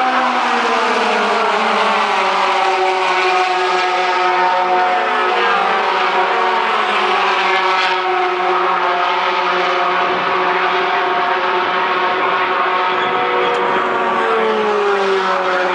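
A pack of racing pickup trucks running at speed, with many engines sounding at once. Their pitches fall as the pack passes in the first couple of seconds, then the mix of engine notes holds steady, and another engine note drops near the end.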